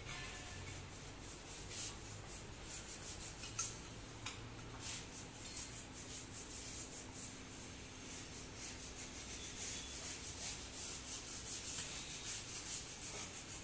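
Metal rubbing and scraping as the gears of a tractor's planetary gear set are worked by hand in their housing. The scrapes come in short strokes, quickening into a fast run near the end, with one sharp click about three and a half seconds in.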